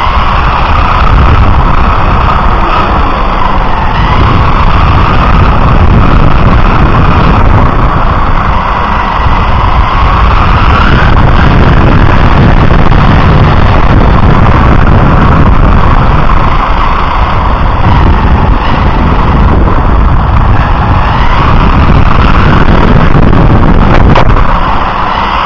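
Onboard sound of a radio-controlled car at speed: the motor's whine rises and falls with the throttle over heavy tyre and wind rumble picked up by the chassis-mounted camera. A sharp knock comes near the end.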